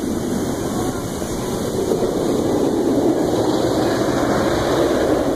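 Steady rumbling roar of a steel inverted roller coaster's train running on its track, swelling a little past the middle.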